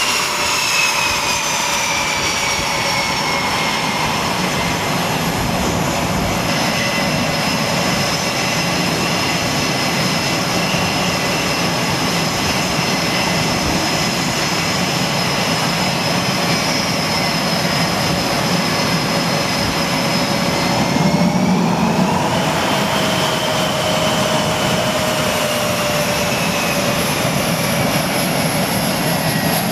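Jet engines of a taxiing F/A-18 Super Hornet on an aircraft carrier's flight deck: a loud, steady rushing noise with a high whine that slides down in pitch. About two thirds of the way through, the whine dips, rises again and then slowly falls.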